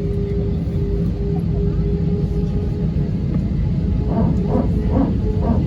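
Airbus A320 cabin noise: a steady low rumble with a constant droning tone. A few muffled syllables of a voice come through near the end.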